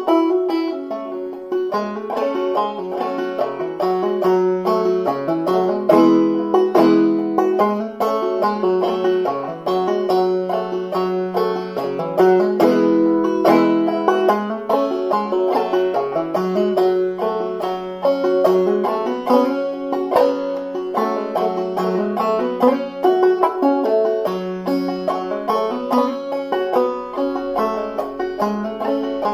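Clawhammer banjo playing an old-time tune in open G minor tuning (gDGBbD), tuned about a semitone low. A steady stream of plucked notes, with one high note returning again and again as a drone.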